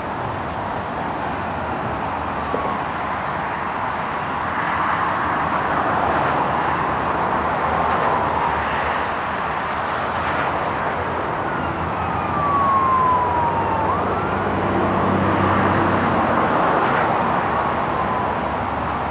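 Steam locomotive 71000 Duke of Gloucester, a three-cylinder Pacific, working hard at speed as it approaches, heard as a steady rushing exhaust that grows louder in swells. A wailing siren glides down and back up in the background about twelve to fourteen seconds in.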